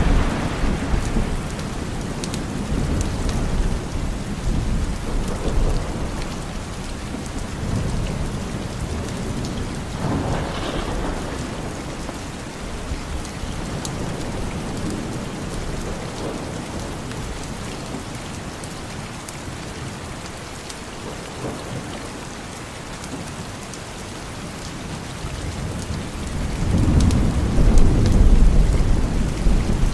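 Steady rain with thunder rumbling: a rumble dying away just as it begins, a softer one about a third of the way in, and a louder, longer rumble near the end.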